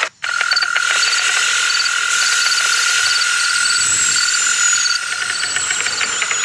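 A chorus of calling animals: one steady high trill throughout, with short high chirps repeating in little groups over it and a faint falling whistle near the middle. It starts after a momentary gap in the sound.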